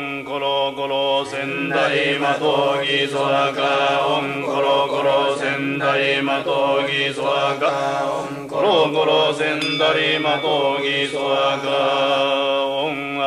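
Japanese Shingon Buddhist chanting: a voice reciting sutras and mantras in a steady, unbroken drone.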